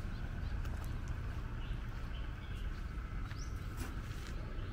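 Quiet outdoor street ambience: a steady low rumble with a faint high hum, and a few brief bird chirps.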